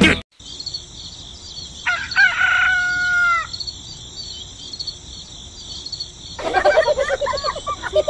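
A rooster crowing once, a long crow about two seconds in, over a steady high chirring in the background. From about six and a half seconds, rapid high-pitched chattering voices.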